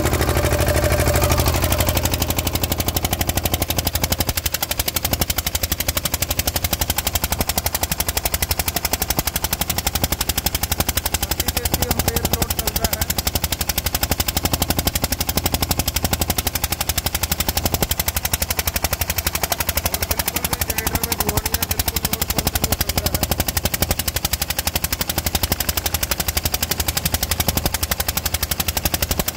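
Diesel engine of a 10 kVA Kirloskar generator set running steadily, with a fast, even knocking beat from its firing strokes.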